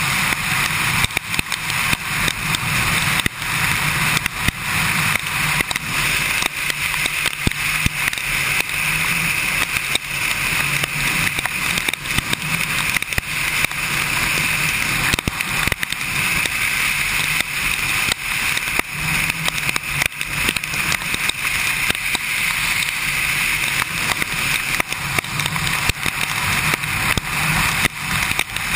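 Kawasaki Ninja sportbike cruising on a wet road in the rain: steady wind rush and tyre spray over a low, steady engine note, with frequent short crackles of wind and raindrops hitting the camera's microphone.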